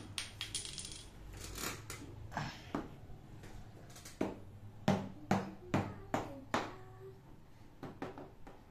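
Plastic chess pieces clicking and tapping as they are handled and set down on the board, with scattered single clicks and a run of about six quick ones in the middle.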